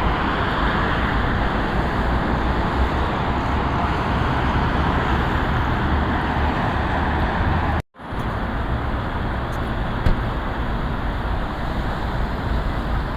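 Steady outdoor background noise: a low rumble under an even hiss, with no bells ringing. The sound cuts out for an instant about eight seconds in, and there is a single click about two seconds later.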